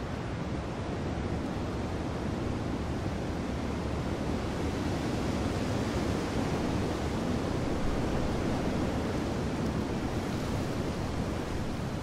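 Steady rushing wind noise, swelling slightly about halfway through.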